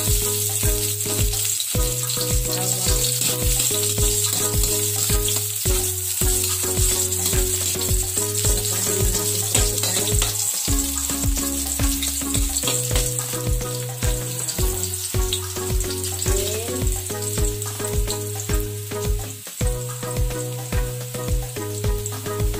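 Chopped garlic sizzling as it fries in hot oil in an aluminium wok, with a metal spoon scraping and stirring it at times. Background music with a steady beat and bass line plays under the frying.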